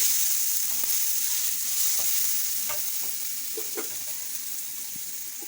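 Cumin seeds and garlic sizzling in hot oil in a pot, with a few light ticks of a spoon stirring them. The sizzle eases off gradually.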